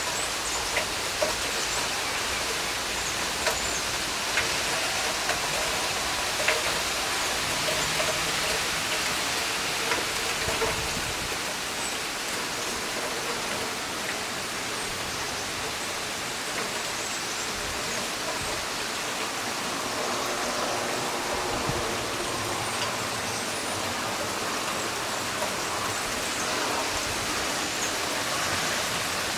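Steady summer rain falling, with a few louder drips standing out now and then, mostly in the first ten seconds or so.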